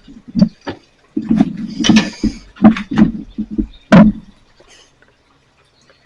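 Irregular metal clanks and knocks from hand tools working a thick steel rod as its loop is forced open. The loudest knock comes about four seconds in, and the last second and a half is near quiet.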